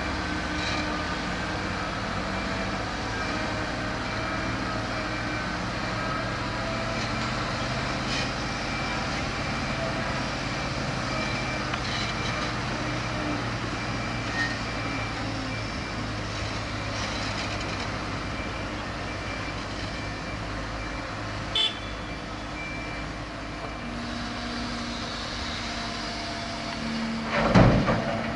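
Steady hum of vehicle engines with general construction-site noise, a brief sharp sound about three-quarters of the way through and a louder burst of noise near the end.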